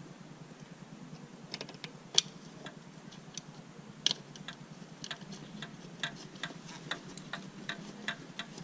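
Light, irregular clicks and ticks, a few a second, starting about a second and a half in, from small screws and parts being handled and fitted by hand at a new mass airflow sensor on the intake tube. Two sharper clicks stand out, one about two seconds in and one about four seconds in.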